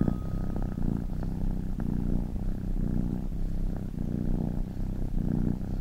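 A domestic cat purring, a low continuous rumble that swells and fades in even, repeating pulses.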